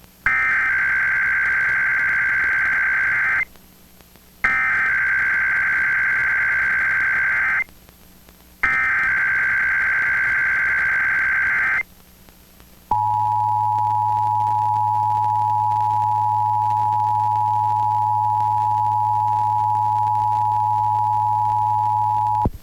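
Emergency Alert System SAME header: three bursts of shrill warbling digital data tones, each about three seconds long with a second's gap between them. Then comes the EAS two-tone attention signal, 853 Hz and 960 Hz sounded together, a steady harsh dual tone held for about nine and a half seconds that cuts off abruptly.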